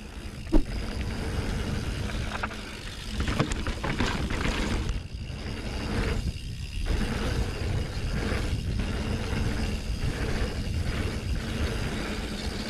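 Mountain bike riding down a dirt trail: wind rushing over the microphone, tyres rolling over dirt, and the bike rattling, with scattered sharp knocks over bumps.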